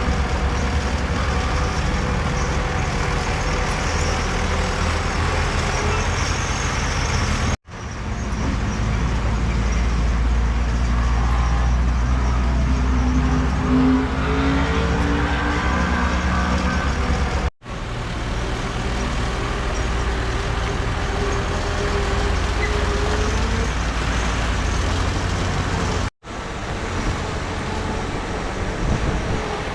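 Heavy diesel earthmoving machinery running under load, its engine pitch rising and falling. The sound breaks off sharply three times and picks up again.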